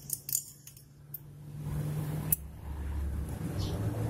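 Small metal clicks and clinks of a brass jet from a racing needle set being worked into the body of a TS125 carburettor by hand: a few light clicks in the first second and a sharper click a little past two seconds in, over a steady low hum.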